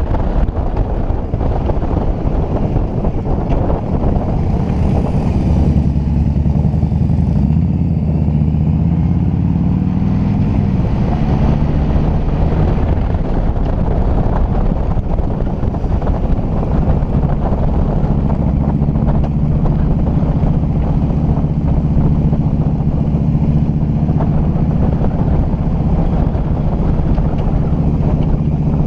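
Motorcycle engine running at road speed, heard from a camera on the bike's fairing, with wind rushing over the microphone. The engine note shifts for a few seconds, starting about five seconds in, then settles again.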